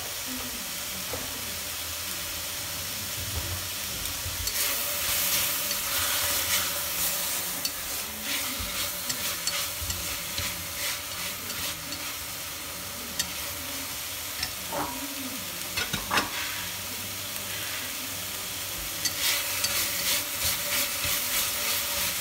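Beef and dried radish strips sizzling in a stainless steel pot as they are stir-fried with chopsticks. The sizzling swells into louder, hissier spells about four to seven seconds in and again near the end as the food is stirred and tossed. A few sharp taps against the pot come in the middle.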